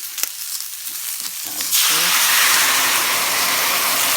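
Garlic and onion frying in oil in a pan, a steady sizzle with a few clicks of a stirring utensil. About a second and a half in, the sizzle suddenly jumps much louder and denser.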